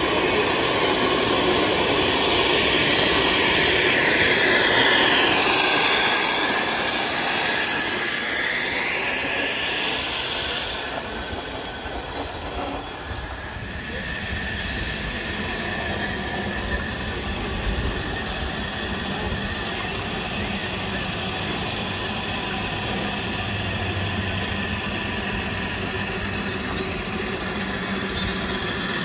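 Model steam road vehicle passing, hissing loudly as it vents a thick cloud of steam. The hiss swells and falls as it goes by and drops away about eleven seconds in, leaving the quieter steady running of a small steam vehicle.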